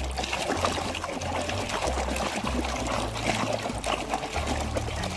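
Water running and splashing as a muddy plastic toy is rinsed and washed, a steady wet hiss with small crackly splashes throughout.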